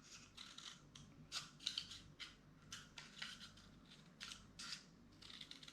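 Scissors cutting through a cardboard toilet-roll tube into thin strips, faint repeated snips about two to three a second.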